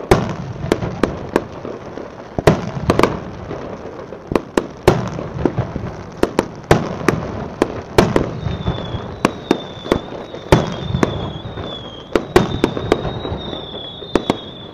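Fireworks display: a rapid, irregular series of sharp bangs from bursting shells, each trailed by a low rumble. From about halfway a thin, high, wavering whistle runs on under the bangs.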